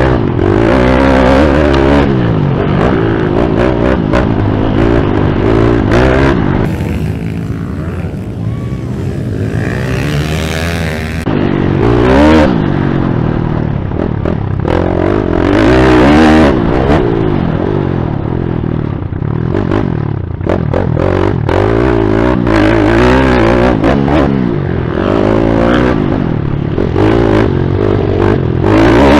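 YCF pit bike's single-cylinder four-stroke engine revving up and down as the rider works the throttle on a dirt track. It eases off to a lower, quieter run for a few seconds about a third of the way in, then picks up again. Heard close up from the rider's helmet.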